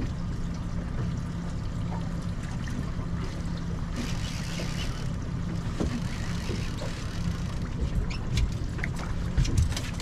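Boat motor running steadily at trolling speed, a low hum with water and wind noise; a brief hiss about four seconds in and a few light clicks near the end.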